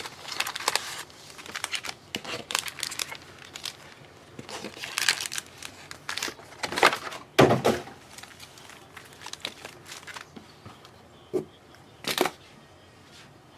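Wrapping on a trading-card box and packs crinkling and tearing in irregular bursts as it is opened, with the loudest rips about seven and twelve seconds in.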